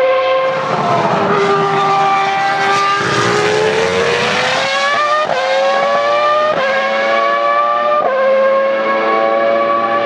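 Ferrari Formula 1 car's high-revving engine at full throttle: the note sags about a second in, then climbs steadily and steps down sharply three times in the second half, quick upshifts as the car accelerates away.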